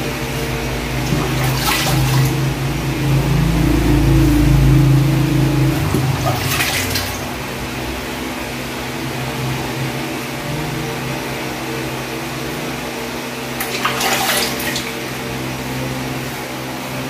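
A steady machine hum with a deeper rumble that drops away about six seconds in, and three short swishes.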